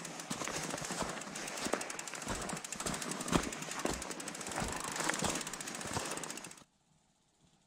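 Fat bike riding over packed snow: a dense, fast rattle of clicks and crunching with occasional harder knocks. It cuts off abruptly near the end, leaving a quiet background with a few faint thumps.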